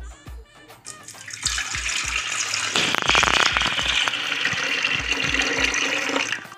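Water poured in a steady stream into a clay pot, splashing into the water already inside. The pouring starts about a second and a half in, grows louder about three seconds in, and cuts off suddenly just before the end.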